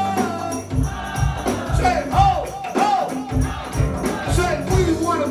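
Live go-go band music: a steady kick-drum beat and percussion under singing.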